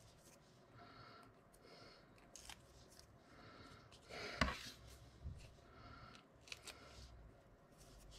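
Faint rustles and light clicks of hands handling a card dolphin cut-out and small adhesive foam pads, peeling off their backing papers, with one sharper tap about four and a half seconds in.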